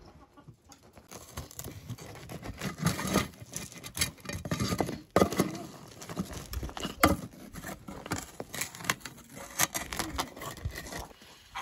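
A wooden spatula scraping and spreading ash over a metal pot lid sealed with dough: gritty scrapes in irregular strokes with sharp clicks and knocks against the lid. Heaping hot ash on the lid gives the rice heat from above as it steams.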